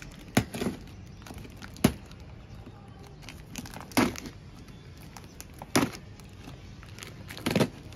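Scissors cutting through packing tape and cardboard on a shipping box: about six sharp snips and rips, spaced a second or two apart, with faint crinkling of tape between them.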